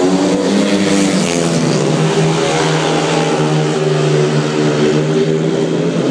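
Several speedway bikes' 500cc single-cylinder methanol engines racing round the track together, a loud, continuous engine note that rises and falls a little in pitch.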